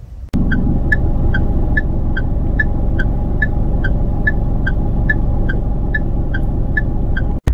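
A running vehicle's steady low rumble with a light regular ticking, about two and a half ticks a second and alternating slightly in pitch; it starts and stops abruptly.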